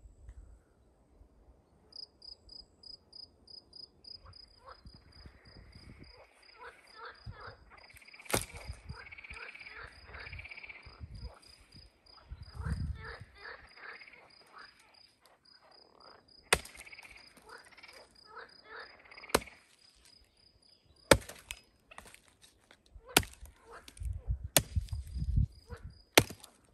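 Frogs croaking in repeated rapid trains of pulses, over a steady high-pitched pulsing insect trill. Several sharp knocks sound in the second half.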